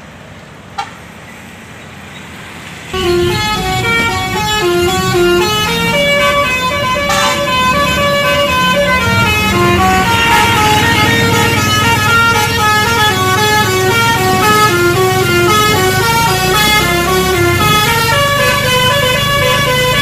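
Basuri telolet bus horn, a multi-tone horn playing a quick melody of several notes sounding together, starting suddenly about three seconds in and going on, over the low rumble of a bus.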